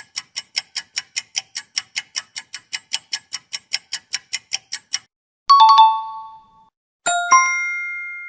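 Sound-effect clips: rapid, even ticking, about five or six ticks a second, that stops about five seconds in, followed by a short two-note chime and, about a second and a half later, a bell-like ding that rings and slowly fades.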